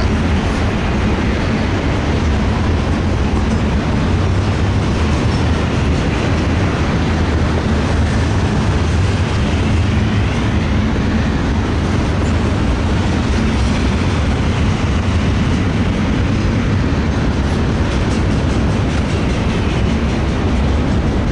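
Freight train of tank cars rolling past, a steady loud rumble of wheels on rail.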